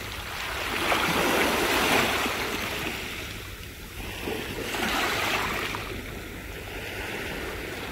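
Sea surf washing onto the shore in slow surges, swelling and fading twice.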